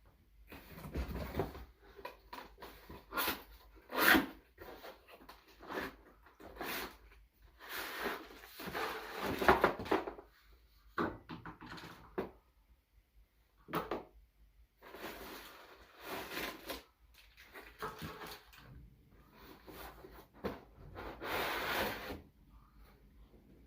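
A present being unwrapped: irregular rustling and crinkling of paper and packaging, with scattered knocks and clicks from handling a box.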